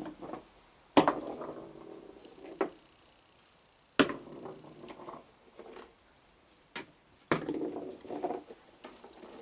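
Cookies tossed by hand landing on a wooden deck: a few sharp, separate knocks, with softer rustling from the cookie container between them.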